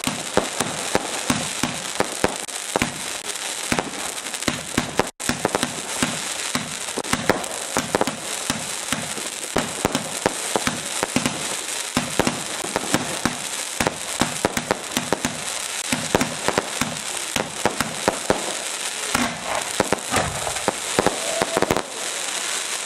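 Fireworks crackling densely, a rapid, unbroken stream of sharp pops and snaps, with a momentary cut-out about five seconds in.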